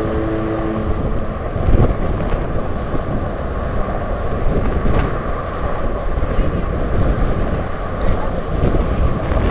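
Steady rush of wind buffeting the microphone, mixed with the roar of car traffic passing on the roadway alongside, with a brief thump about two seconds in.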